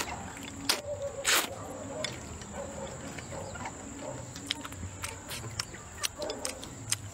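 A person slurping and chewing wide sweet potato vermicelli noodles: a short, loud slurp about a second and a half in, then wet chewing and lip smacks with a few low closed-mouth hums.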